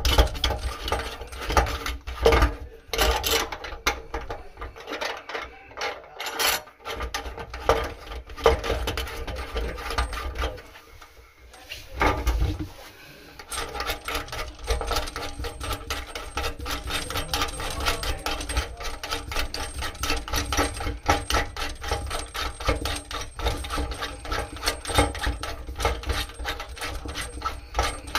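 Small plastic and metal plumbing parts being handled and screwed together: a dense run of quick clicks, taps and rubbing, with a short lull about eleven seconds in.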